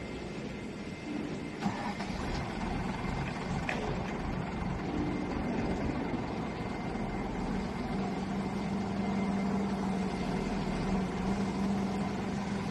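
Skid steer loader engine running steadily, its hum growing a little stronger and steadier in the second half, with a couple of light knocks early on.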